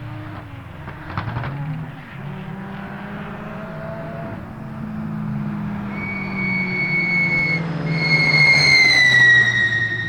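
Turbocharged 4G63 engine of a rear-drive Lancer Evo X drift car running on track, its note rising about a second in and then holding fairly steady. A high steady whine comes in about six seconds in, breaks briefly, then slides lower and gets louder near the end.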